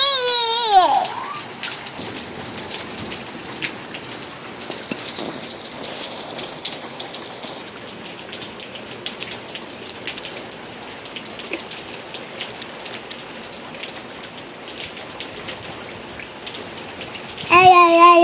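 Steady rain falling, a constant hiss with scattered drip ticks. A high child's voice calls out briefly at the start, and a voice is heard again near the end.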